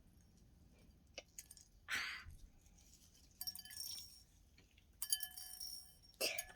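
Small hard objects clicking and clinking, with a short rustle about two seconds in. Twice a strike rings on briefly with a clear, chime-like tone.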